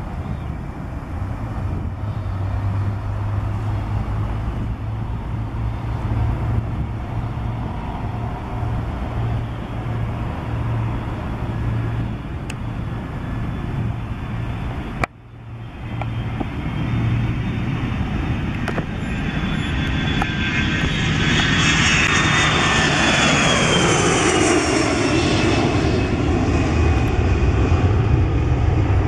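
Cessna Citation X business jet's twin Rolls-Royce AE 3007 turbofans during takeoff. A steady low hum at first, broken off sharply about halfway through. Then the engine noise grows at takeoff power and the jet passes by, its whine falling in pitch as it climbs away.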